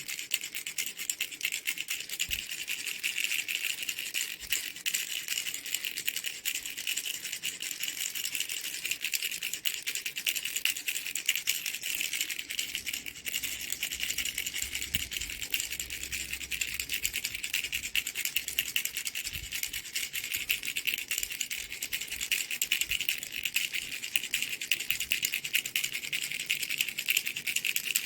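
Baby's toy rattle being shaken continuously, a fast, dense, bright rattle that keeps going without pause.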